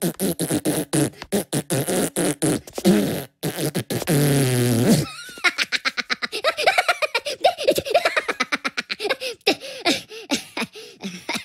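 Cartoon Minion voices giggling and laughing in rapid bursts, with one long fart sound about four seconds in, its pitch falling, before the laughing starts up again.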